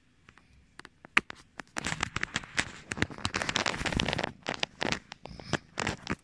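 Crackling, rustling handling noise of a cat's fur and face rubbing against the phone's microphone as it nuzzles the camera. The noise is densest from about two to four seconds in, then thins to scattered clicks.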